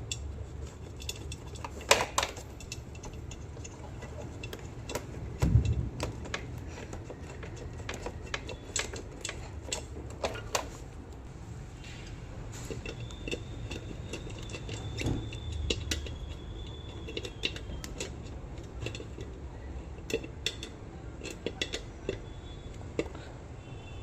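Scattered small clicks and light metallic taps of hand tools and small parts being handled, with a sharper knock about two seconds in and a dull thud a few seconds later.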